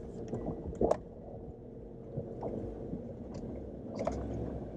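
Jeep Wrangler JL crawling slowly along a rough trail, heard from inside the cabin: a low steady engine hum with a few sharp knocks, the loudest just under a second in.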